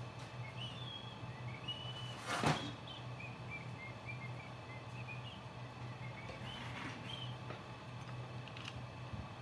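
Hands handling parts on a workbench: one sharp clack about two and a half seconds in, then a few light ticks. A steady low hum and faint short high chirps run underneath.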